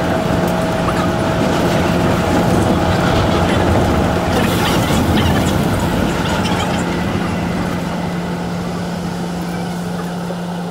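Shonan Monorail suspended monorail car running, heard from inside the car: an even rumble of running noise over a constant low drone. A higher steady whine drops out about four seconds in, and the noise eases slightly in the second half.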